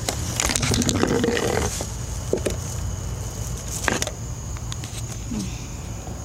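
Scattered clicks and knocks of scrap being handled while a can is picked up, over a steady low rumble.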